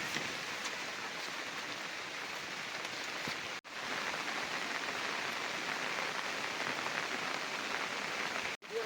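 Heavy rain falling steadily, a dense even hiss of rain on surfaces. It cuts out for an instant twice.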